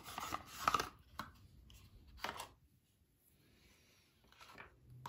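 Cardboard rustling and scraping as a small paper box and its sleeve are handled and set down on a table, then a pause of nearly two seconds before faint rustling starts again near the end.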